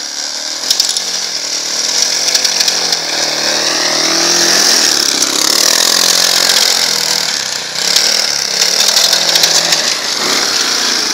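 Small single-cylinder engine of a Leshy 2x2M two-wheel-drive fat-tyre motorcycle revving as it rides through snow, its pitch rising and falling with the throttle, with a brief dip about three-quarters of the way through before it picks up again.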